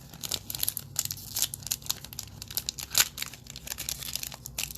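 Plastic wrapper of an NBA Hoops Premium Stock trading card pack crinkling and tearing as it is opened by hand, an irregular run of crackles with one sharp, loud crack about three seconds in.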